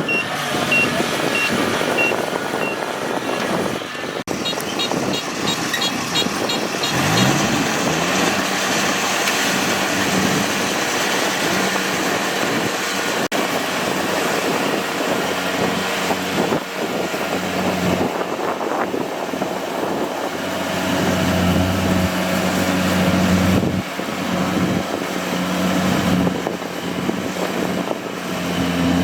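Kubota DC-70G PRO rice combine harvester's diesel engine and machinery running steadily, with a series of short electronic beeps in the first few seconds and the engine note rising about seven seconds in.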